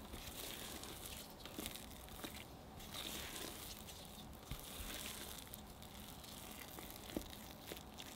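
Spatula mixing thick red velvet cake batter in a glass bowl: repeated soft squishing and scraping strokes.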